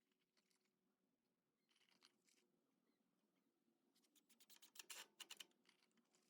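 Near silence, broken by faint clicks and rattles, a few about two seconds in and a quicker run of them around four to five seconds in.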